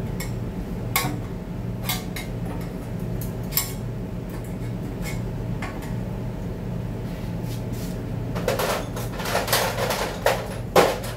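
Metal parts and hand tools clinking during transmission assembly: scattered sharp clicks, then a burst of clattering near the end as parts are handled on the workbench, over a steady low hum.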